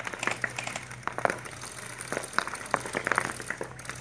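Gel ball blasters firing in an irregular scatter of short, sharp pops, several a second.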